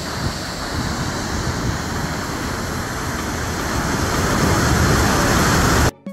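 Kjosfossen waterfall's steady rush of falling water, growing slightly louder and then cutting off suddenly near the end, where piano music starts.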